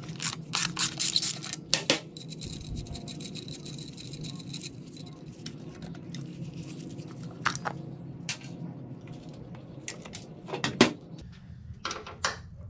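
Metal hand tools clicking and clanking against the steel parts of a small dirt bike's rear brake arm and swingarm during disassembly. The sharp clicks come in clusters, busiest near the start and again later on, over a steady low hum.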